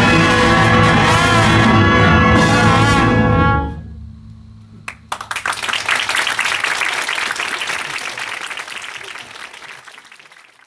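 A school concert band holding its final full chord, brass on top, cut off about three and a half seconds in. After a short hush, the audience applauds, the clapping fading out near the end.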